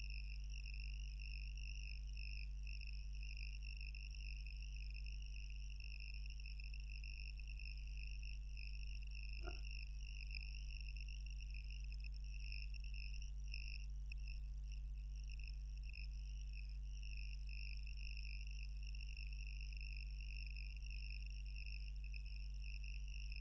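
Steady background noise with no speech: a constant low hum under an even, high-pitched buzz, and one faint tick about ten seconds in.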